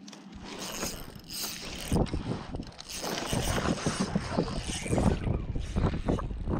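Spinning reel being cranked, its gears giving a rapid run of small whirring clicks as line is reeled in.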